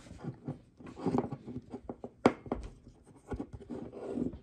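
Small clicks and scrapes of a black watch strap and its metal pin being handled and fitted to the watch case, with one sharp click a little past two seconds in.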